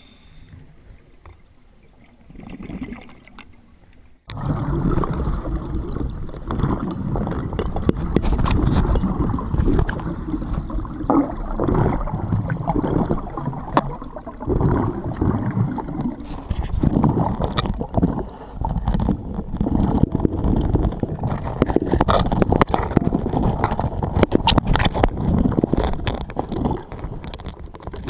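Underwater gurgling and bubbling of a scuba diver's exhaled bubbles, heard muffled through a dive camera's housing. It starts suddenly about four seconds in, after a quieter stretch.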